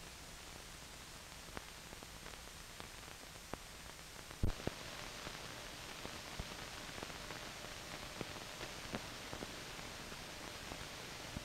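Steady hiss of an old film soundtrack, dotted with small crackles and clicks, with one louder pop about four and a half seconds in.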